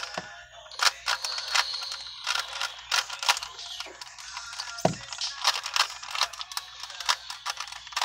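A 3x3 Rubik's cube being turned fast by hand: a quick, irregular run of plastic clicks and clacks as its layers rotate.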